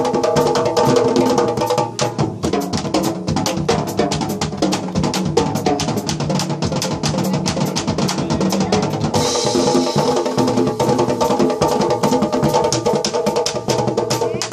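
Live jazz band playing: a drum kit and Uruguayan candombe tambor drums beat out a dense, driving groove, with sustained pitched instruments underneath.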